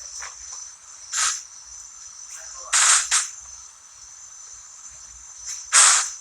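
Steady high-pitched trilling of insects, crickets by the sound tags, with three brief loud bursts of noise about one second, three seconds and six seconds in.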